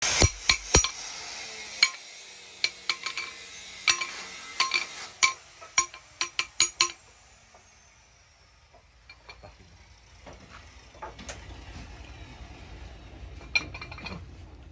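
Old steel cleaver struck repeatedly against a rusty iron post, each hit a sharp clink with a short metallic ring, coming in irregular strokes over the first seven seconds or so. After that only a few faint knocks, then two more clinks near the end.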